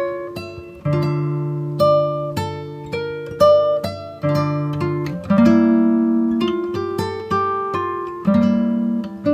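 Acoustic guitar played slowly, plucked notes and strummed chords each ringing out and fading before the next.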